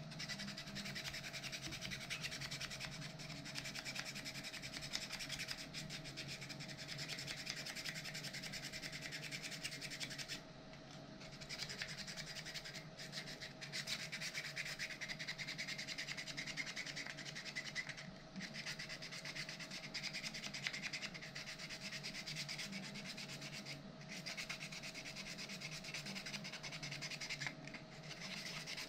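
Hand sanding of a 3D-printed plastic robot bicep part: continuous abrasive rubbing strokes, broken by a few brief pauses, the longest about a third of the way in.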